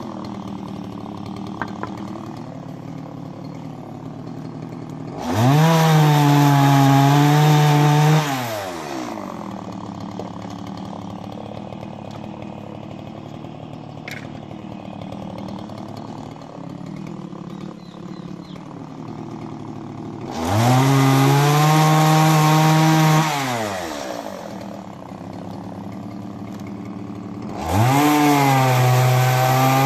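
MS170 two-stroke chainsaw idling, revved up to high speed three times for about three seconds each. Each time the pitch climbs, holds steady and drops back to idle.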